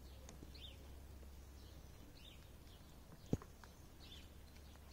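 Faint, high peeping of ducklings, short chirps about once or twice a second, with a single sharp knock about three seconds in.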